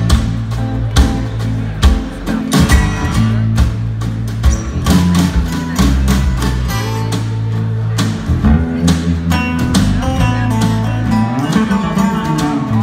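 Live band playing a song: strummed acoustic guitars over electric bass and a drum kit, with steady bass notes that change every second or so and regular sharp hits.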